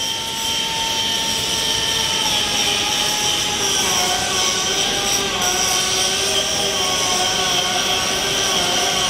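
Steady drone of machinery in a large factory hall, with several whining tones held over a continuous rushing noise.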